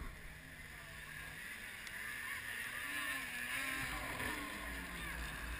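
Distant snowmobile engine running, growing louder over the first few seconds.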